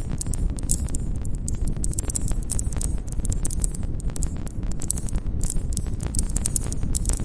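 Wood campfire crackling: many irregular sharp snaps and pops from the burning logs over a steady low rumble of the flames.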